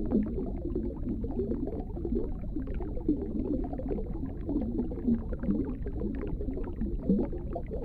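Underwater ambient noise picked up by a camera below the surface: a steady low rumble of moving water with an irregular gurgling warble and many small clicks and ticks.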